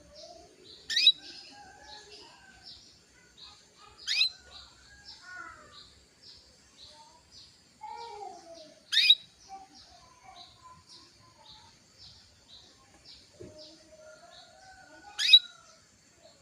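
Female canary calling in breeding condition, the kind of call used to rouse males into song: four loud, sharp call notes a few seconds apart over a steady run of soft, quick chirps.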